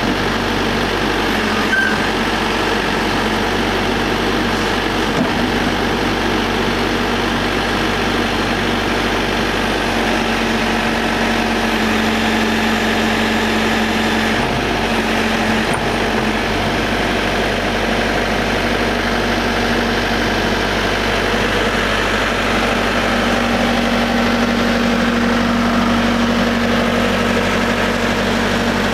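Cat 420D backhoe loader's diesel engine running steadily at a constant speed.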